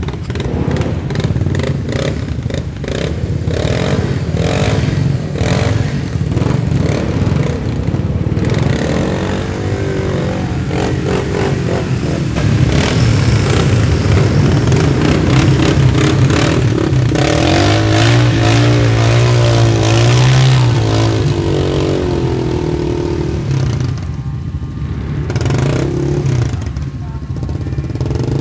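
ATV (four-wheeler) engine running hard under load as the quad churns stuck in deep mud, its tyres spinning. The revs rise and fall repeatedly, loudest a little past the middle, with some clattering.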